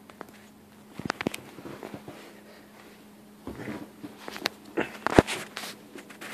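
Scattered taps, knocks and scuffles of small puppies playing on a carpet and rug, mixed with handling noise, over a faint steady hum. A few clicks come about a second in, then a busier run of knocks and rustling with the sharpest knock about five seconds in.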